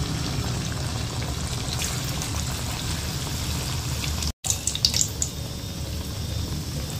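Flattened rasabali patties of chhena dough deep-frying in hot oil in a kadai: a steady sizzle of bubbling oil. It cuts out for an instant about four seconds in, with a few sharper spits just after.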